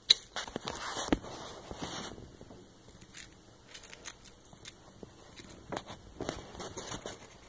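Hedgehog chewing and crunching live mealworms from a bowl: quick, irregular crisp crunches and clicks, a dense flurry in the first two seconds, then scattered bites.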